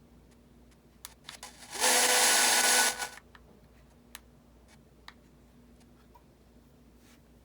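P-SB7 spirit box sweep radio played through the DAS-ANC noise-control unit. It is mostly quiet with faint scattered clicks, then one loud burst of radio static about two seconds in that lasts just over a second and cuts off.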